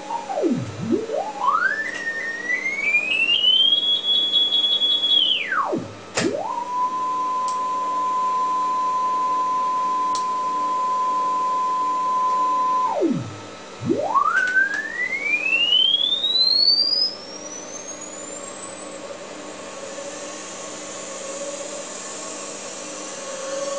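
A Sony BVH-3100 1-inch videotape recorder reproducing a test tone from tape, its pitch following the tape speed as the tape is shuttled back and forth: it glides down almost to nothing, sweeps up to a high held tone, drops, then holds a steady 1 kHz tone at normal play speed for about seven seconds. Near the end it sweeps up out of hearing as the tape winds fast, leaving a steady hiss.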